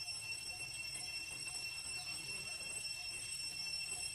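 Steady high-pitched insect drone, with faint short notes repeating about twice a second underneath.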